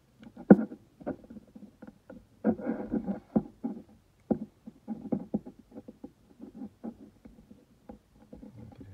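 Fingers working a rubber inner seal into the groove inside the head of a skid steer hydraulic cylinder. Irregular rubbing and small clicks and knocks of handling, the sharpest about half a second in, with a denser stretch of scuffing around the third second.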